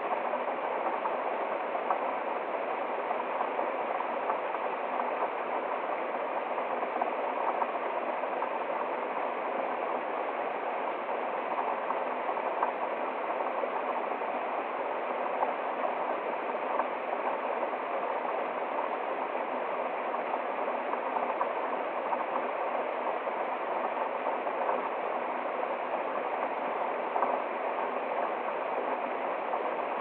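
Small woodland waterfall and stream: water splashing down over rocks and running on in an even, steady rush, with small splashes here and there.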